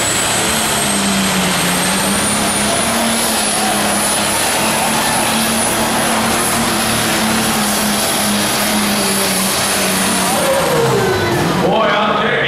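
Allis-Chalmers D21 pulling tractor's smoker diesel engine running flat out under load as it drags the pulling sled, with a high whine over the engine note. About ten seconds in the whine cuts off and the revs drop away sharply, then pick up briefly again near the end.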